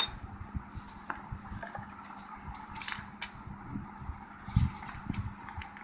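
Handling noise from a hand turning a model scapula: scattered soft rustles and light clicks, with a short hiss about three seconds in and a dull thump shortly after. A faint steady hum runs underneath.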